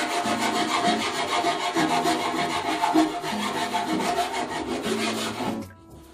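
Craft knife sawing back and forth through a stiff white board, a rapid, even rasping that stops shortly before the end.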